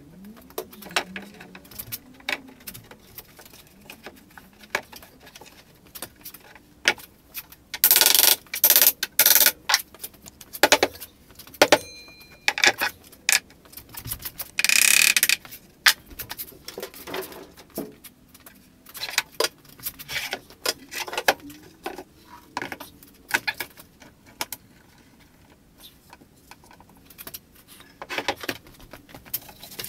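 Hand work on a wooden cabinet door glue-up: a run of wooden knocks and clicks, with a cluster of loud hammer blows about eight to ten seconds in and a loud rasping sound lasting about a second around the middle. Near the end, metal bar clamps click and rattle as they are set against the panel.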